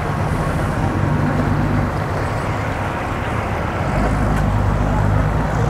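Yamaha outboard engine of a Robalo R227 dual-console boat running at low speed, a steady low hum that grows louder and deeper about four seconds in as the boat draws near.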